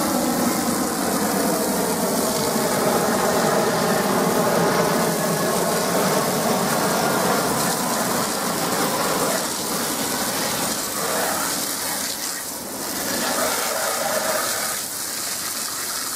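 Garden hose jet spraying hard against the underside of an aluminum lawn mower deck, a steady loud hiss and splatter of water with some faint wavering tones in it.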